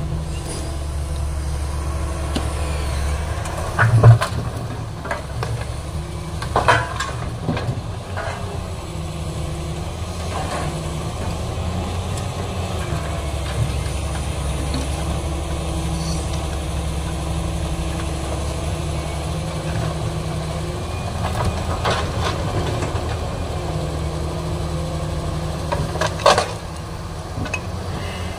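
Diesel engine of a Doosan hydraulic excavator running steadily, with its low drone shifting in level as it works. Loud clanks and crashes of scrap iron and debris striking: the loudest about four seconds in, another near seven seconds, and two more near the end.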